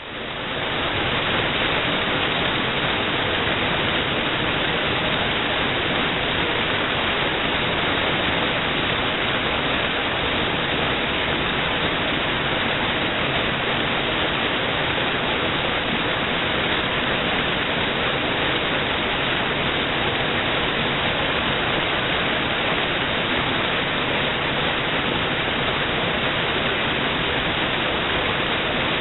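Waterfall: a steady, unbroken rush of falling water, fading in over about the first second.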